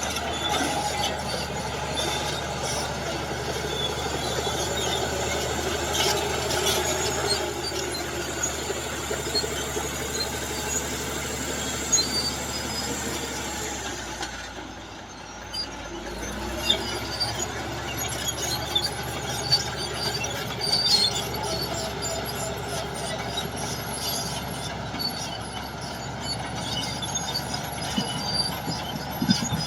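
Tracked earth-moving machine working: a diesel engine running under load while the steel crawler tracks squeal and clank. The sound dips briefly about halfway through, then carries on.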